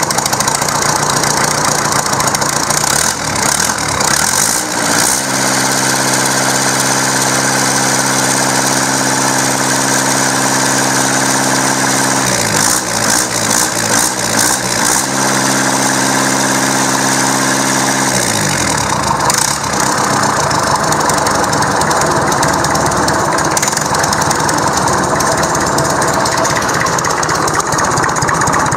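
Perkins 4.203 four-cylinder indirect-injection diesel engine running just after starting. Its speed rises about four seconds in and holds, wavers briefly around twelve seconds, then drops back to a lower, rougher idle around eighteen seconds.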